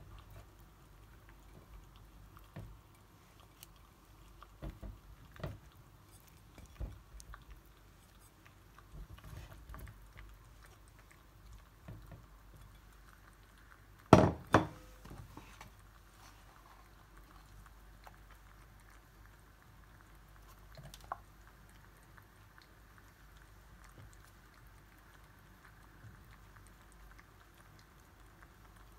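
Soft, scattered knocks of cauliflower florets being set into a tagine base, with one much louder sharp double knock a little under halfway through and a single click later on.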